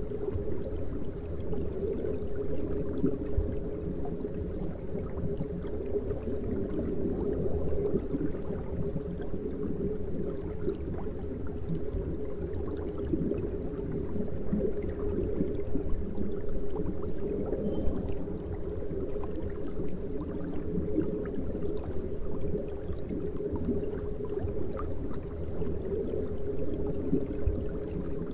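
Aquarium water running and bubbling steadily from tank filtration and aeration, a muffled, low-pitched noise.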